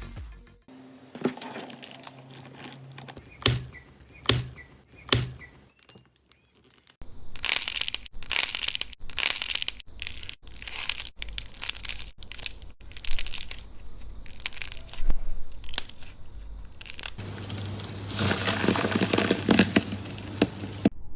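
Slime being squeezed and pressed by hand, making crackling, crunching pops: scattered clicks at first, then dense and continuous crackling from about seven seconds in.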